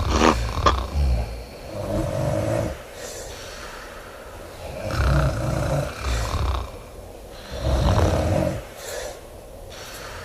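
A person snoring loudly: deep, rattling snores about a second long, coming roughly every three seconds with quieter breaths between.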